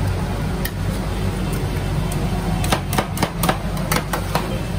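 Two metal spatulas tapping and scraping on the steel cold plate of a rolled ice cream machine as they spread and work the ice cream mixture: a few single clicks at first, then quick clicks coming fast from a little past halfway. A steady low hum runs underneath.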